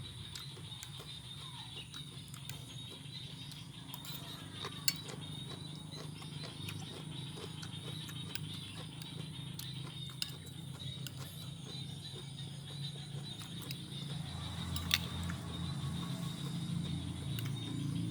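Chewing raw vegetable salad (long beans, cabbage, cucumber), with scattered sharp crunches, over a steady high-pitched whine in the background.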